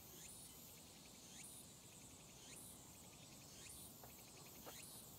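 Faint insect chirring in a steady pulsing rhythm, with short rising chirps about once a second that grow a little louder near the end.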